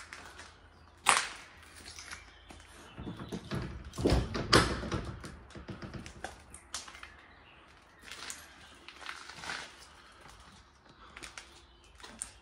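Footsteps and scattered crunches of debris underfoot on a littered concrete floor, as someone walks slowly about. There is a heavier thump with a low rumble about four seconds in.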